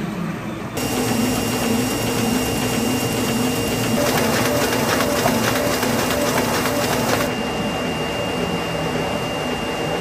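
Printing press running: a steady mechanical hum with a thin high whine, joined from about four seconds in by a rapid, fast-ticking clatter that stops at about seven seconds, leaving a lower steady machine hum.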